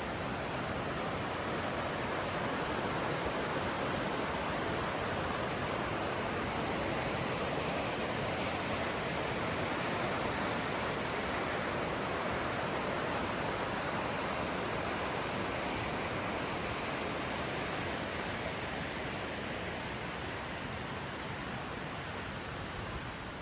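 Mountain river running, a steady rush of water that eases slightly near the end.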